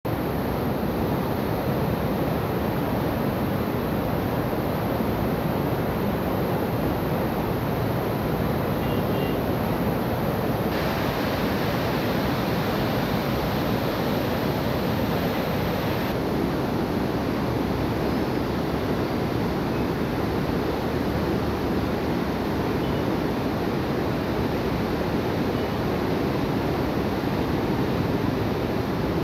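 Godavari River in flood: fast floodwater rushing and churning, a steady, even rush of water noise.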